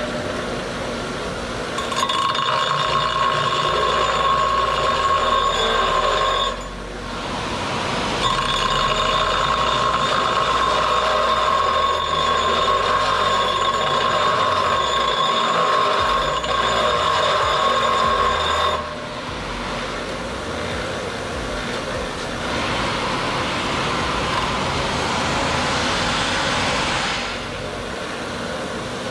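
Bench grinder wheel grinding down a C6 Corvette ZR1 brake caliper held against it: a steady high whine while the metal is pressed to the wheel, in three spells with short breaks as it is lifted off. The last spell is rougher and hissier.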